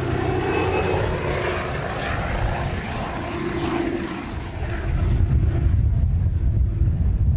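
Aircraft engine noise: a steady rushing drone with a faint wavering tone in it, turning into a heavier low rumble about five seconds in.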